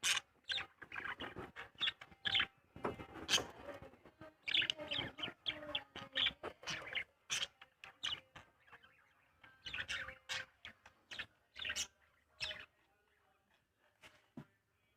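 Small birds chirping and chattering in quick, irregular bursts of short calls that die away near the end.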